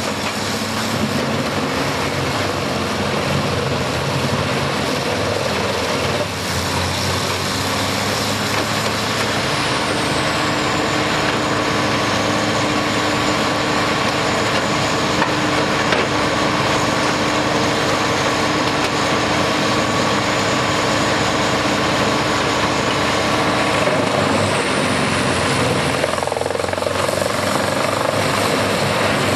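Large Morbark drum chipper running at full power while logs are fed into it, a loud, steady mechanical drone. A high whine drops in pitch about nine seconds in and climbs back near the end.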